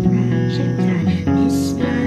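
Electric guitar playing sustained, droning notes; the notes shift to a new pitch about a second in, and a brief burst of noise sounds over them shortly after.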